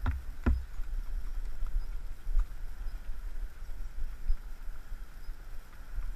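Horses walking on a dirt yard, heard through a low rumble of wind and movement on a horse-borne camera's microphone, with scattered hoof thuds. Two sharp knocks about half a second apart come at the start.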